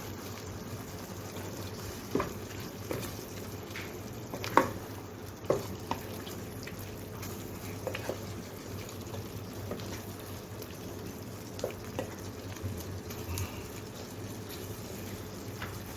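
A spoon stirring chicken curry in a pan, with a few sharp knocks of the spoon against the pan, over a steady hiss of the curry simmering.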